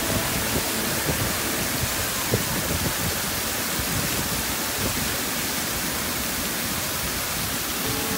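Water jets of a deck dancing fountain spraying up and splashing back down onto the deck, a steady even hiss of falling water.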